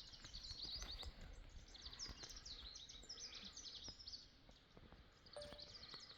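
Faint, rapid high-pitched chirping from small wild creatures: many short chirps overlapping throughout, with a few soft clicks.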